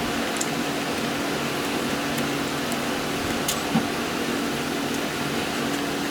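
A steady mechanical hum with a low tone, a few faint ticks and one short knock just before the four-second mark.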